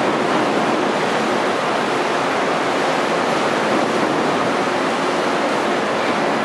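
Steady rush of churned sea water between the hulls of two ships steaming side by side.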